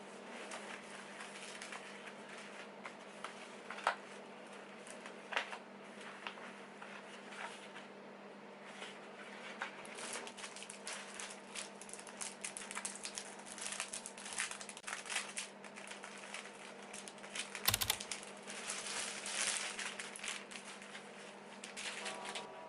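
Close-up handling of packaging, with crinkling and many light clicks and taps, busiest in the second half. One louder knock comes about three-quarters of the way through.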